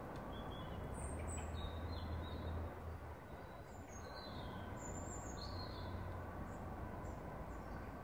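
Wild birds chirping, with short high calls scattered throughout, over a low steady rumble.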